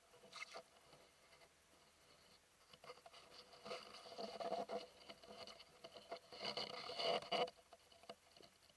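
Close rustling and scraping in bursts, a short one just after the start and longer, louder ones around four to five seconds in and again around six and a half to seven and a half seconds in.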